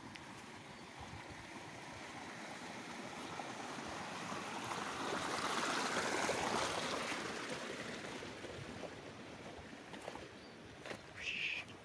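Strong gusting wind, a rushing noise that swells to a peak about halfway through and dies down again. Near the end comes a short, sharp sound.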